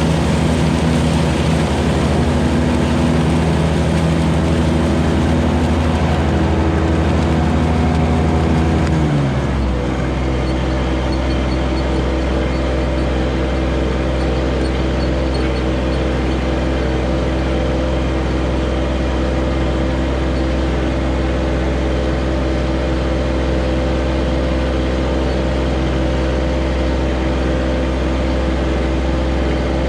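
John Deere 1025R compact tractor's three-cylinder diesel engine running steadily. About nine seconds in, its pitch drops quickly to a lower steady note.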